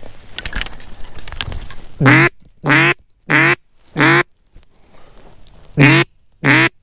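Duck call blown in six loud, short hen-mallard quacks: four evenly spaced, a pause, then two more, calling to incoming mallards. Brush rustles and crackles for about the first two seconds.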